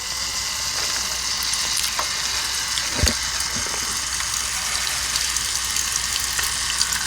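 Keurig K-Mini brewing: a steady hiss as hot coffee streams and sputters out of the brewer and splashes into a cup too short for it, with a single soft knock about three seconds in.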